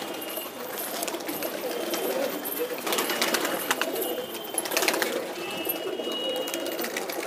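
A flock of domestic pigeons cooing together in a steady, overlapping hum. Flurries of wing flapping come about three seconds in and again about five seconds in, as birds flutter down from the wall.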